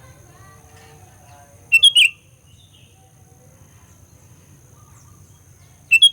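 Sooty-headed bulbul (kutilang) giving two short, loud call phrases, one about two seconds in and one near the end, each a quick cluster of chirpy notes. It is an excited fighter call of the kind played to provoke rival bulbuls. Softer chatter and a low hum run underneath.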